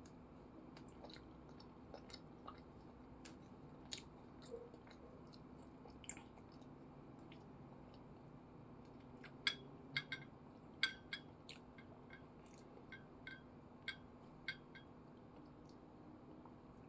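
Faint clicks and taps of bamboo satay skewers knocking against each other and the ceramic plate and bowl, with soft wet sounds as chicken satay is dipped into thick peanut sauce. A quick run of sharper clicks comes about halfway through.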